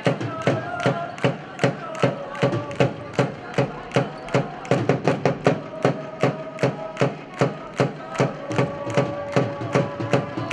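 Supporters' cheering drum beaten in a steady rhythm, about three or four beats a second, with a melody of held notes carried over it, echoing in the sports hall.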